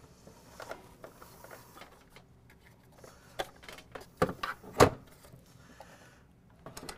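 Handling noise from a small PTZ camera being lifted, moved and set down: scattered light clicks and knocks, with two louder knocks a little after four seconds and just before five seconds.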